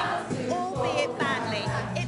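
Amateur community choir singing together, with one woman's voice close and loudest in front of the group.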